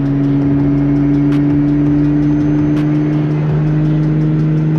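Nissan Skyline R32 GT-R's twin-turbo straight-six (RB26DETT) droning steadily while the car is driven, its pitch creeping up slightly.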